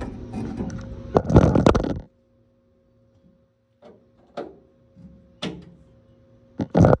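Hands rustling and scraping as a line is pushed and routed through a hole under a truck, stopping suddenly about two seconds in, then a few light knocks and clicks as it is set in place.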